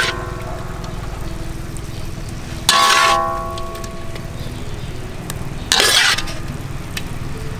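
Metal spatula scraping and knocking against a steel wok twice, about three seconds apart, each stroke leaving the wok ringing briefly, over a steady low rumble.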